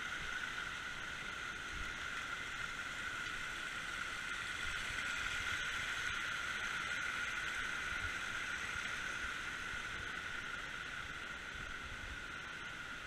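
Rushing water of a rocky woodland stream and its small cascades: a steady hiss that swells a little toward the middle and eases off near the end.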